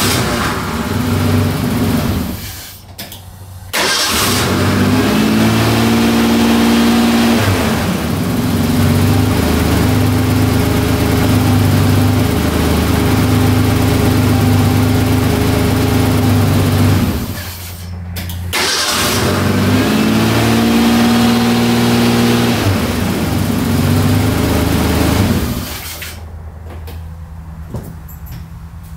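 1988 Ford Ranger's 2.9 V6 being started on its new starter and run, revved up twice. It falters about two-thirds of the way through and picks up again, then cuts off near the end. The engine is not running happily.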